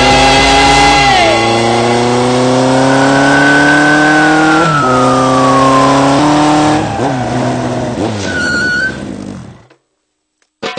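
Motor vehicle engine accelerating hard through several gear changes. Its pitch climbs steadily, drops back at each shift and climbs again, with a high tone sliding down in pitch midway. The sound fades out about a second before the end.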